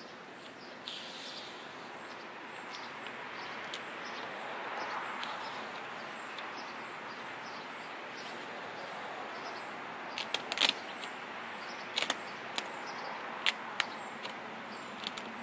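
Steady outdoor background noise with faint high chirping, and from about two-thirds of the way in a handful of sharp crackles as adhesive vinyl wrap is peeled from its backing paper and handled.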